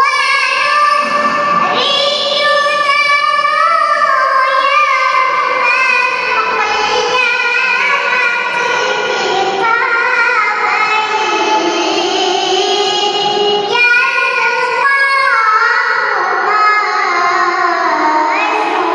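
A young girl's voice reciting the Quran in melodic tilawah style, long held notes winding up and down in pitch with ornaments. It begins abruptly at the start, with a short pause for breath about 14 seconds in.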